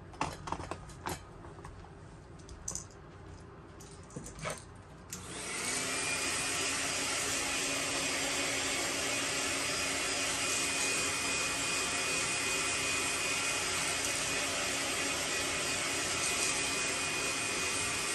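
A few light clicks and knocks of handling, then about five seconds in a heat gun switches on and blows steadily, a fan rush with a thin high whine over it, heat-setting a fresh coat of paint on a lure.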